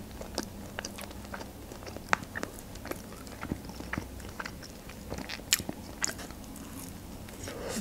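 Close-miked chewing of a McDonald's McChicken burger: soft mouth sounds with many short, irregular smacks and clicks.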